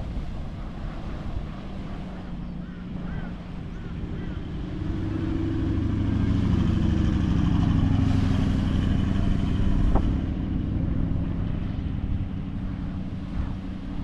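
A four-wheel drive drives past on the beach sand, its engine growing louder over a few seconds, loudest as it passes, then fading away, over steady wind and surf noise.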